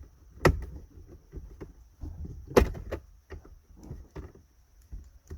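Plastic interior trim being pressed and clipped into place on a centre console: two sharp clicks, about half a second and two and a half seconds in, with lighter taps and rattles of plastic between.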